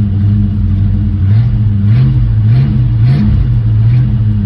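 1968 Ford Mustang engine idling while warming up, a steady low note whose idle speed rises and falls slightly about halfway through before settling again.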